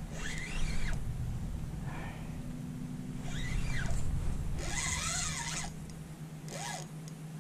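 Fishing reel's drag letting out line in short pulls as a hooked redfish runs: four brief whines that rise and fall in pitch. The loudest comes about five seconds in, with a hiss.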